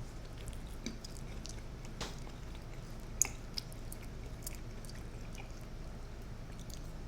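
Close-miked chewing of pasta in a mukbang: soft, wet mouth smacks and squishes, with two sharper clicks a little over three seconds in.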